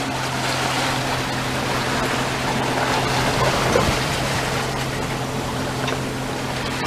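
Water rushing past the hull and wake of a sailboat moving near hull speed on a beam reach through choppy seas: a steady wash of water and wind, with a faint steady low hum underneath.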